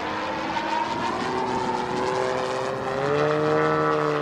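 A giant CAP-232 model aerobatic plane's 3W 684 two-stroke petrol engine and propeller running in flight. The drone climbs in pitch and grows louder through the middle, then holds high and strong near the end.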